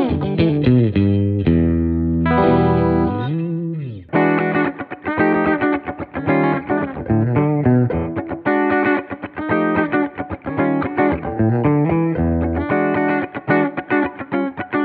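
Gusta GST-05 electric guitar played with a clean tone: held notes with a pitch bend in the first few seconds, then quick runs of picked single notes from about four seconds in.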